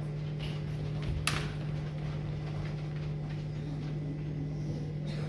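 A steady low electrical hum, with one sharp knock just over a second in.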